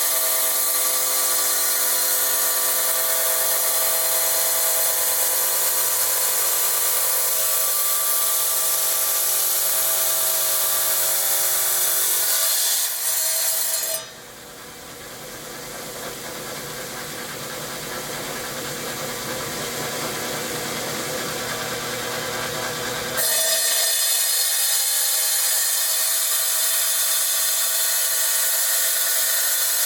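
Felker Tile Master tile saw running with a steady motor whine. For several seconds about halfway through, the whine gives way to a harsher hiss that starts quieter and grows louder, then the steady whine returns.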